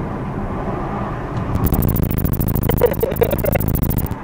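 Tyre and road noise heard inside the cabin of an electric Tesla Model S as it accelerates on the highway, a steady rumble growing louder with no engine sound. From about a second and a half in, a fast run of clicks sits over it.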